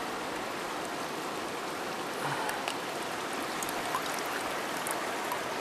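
River water running steadily over stones, with a few faint ticks of drips or small splashes.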